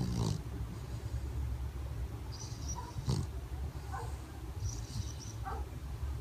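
English bulldog snoring: a rough, low rumble on each breath, about every two and a half seconds, with a thin high whistle on some breaths.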